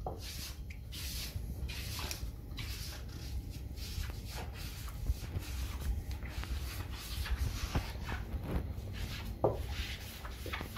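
Damp sponge scrubbed back and forth over glazed wall tiles, wiping dried grout off the tile faces and smoothing the joints: a run of short rubbing strokes, a few a second.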